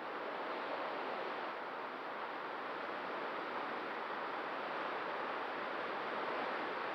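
Steady rush of wind over a Mini Talon RC plane's onboard Runcam 2 camera in flight, with a faint steady tone from the plane's electric motor and propeller under it.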